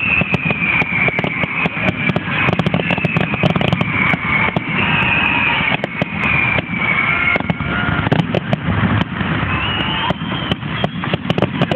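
Fireworks going off: a dense run of rapid crackling pops over a steady rumble, with high whistling tones sliding slowly down in pitch.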